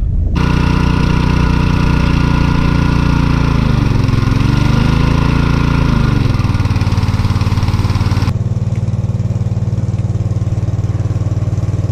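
Small petrol-engine water pump running steadily while pumping out a rock pool, water gushing from its outlet; its pitch dips and wavers briefly about four seconds in. About eight seconds in the hiss drops away and only a duller engine drone carries on.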